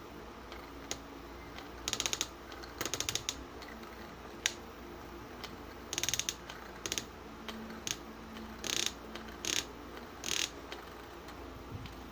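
Mini brass Archimedes push drill worked by hand, each downward push spinning the bit with a short burst of rapid ratchety clicking as it bores into a wooden board. About eight such strokes come at an uneven pace, with one single sharp click in between.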